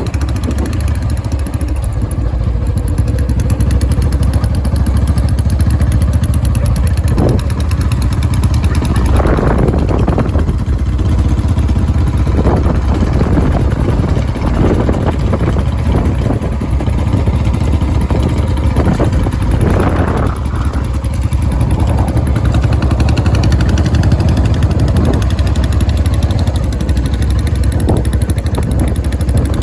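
Royal Enfield Bullet Electra 350 single-cylinder engine running through a big aftermarket Punjabi silencer, a steady low beat broken by short louder bursts several times.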